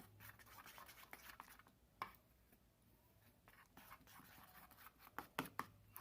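A thickening homemade slime mixture of glue, lotion, toothpaste and talc being stirred with a utensil in a container: faint scraping and rustling, with a sharp click about two seconds in and a few more clicks near the end.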